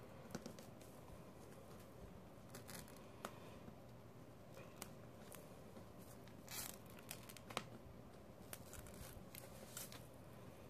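Faint, irregular crackling and small clicks of a dried Titebond II wood glue film being slowly peeled off a vinyl record's grooves.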